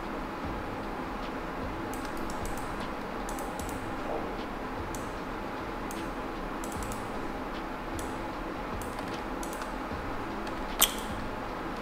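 Scattered clicks and taps of a computer keyboard and mouse over a steady background hiss, with one sharper click near the end.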